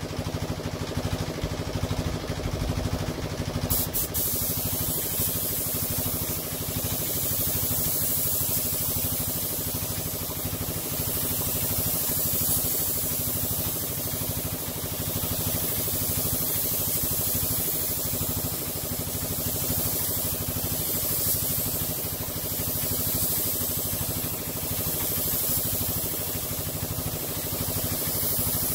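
Air spray gun hissing steadily as it lays a light dust coat of clear lacquer, the gun turned right down; the hiss starts about four seconds in. Under it, the steady hum of the air compressor feeding the gun.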